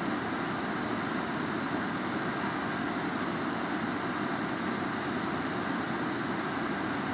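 Semi-hollow electric guitar played through heavy distortion: a steady wall of noise with no clear notes.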